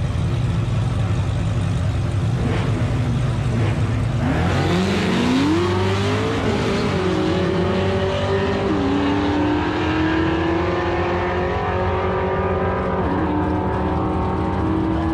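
Cadillac CTS-V's V8 launching down a drag strip: a steady low engine hum, then about four seconds in the revs climb hard as the car pulls away, with the pitch dropping at each upshift, three times, as it runs down the track.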